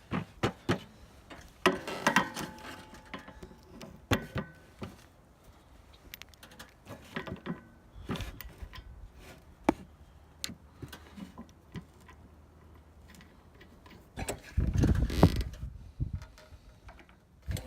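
Hand tools clicking and knocking on metal as handlebars are fitted and bolted onto a Coleman mini bike frame. The sound comes in scattered short clicks, with a louder clatter near the end.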